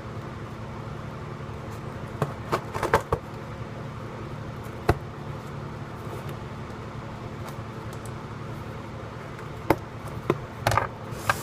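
Scattered clicks, scrapes and crackles of a cardboard package being picked open and its packing tape worked at, over a steady low hum. A cluster of these comes about two to three seconds in, one sharp click about five seconds in, and a busier run near the end.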